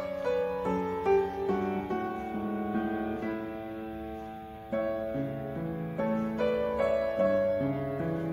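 Background music: a piano melody with gentle chords.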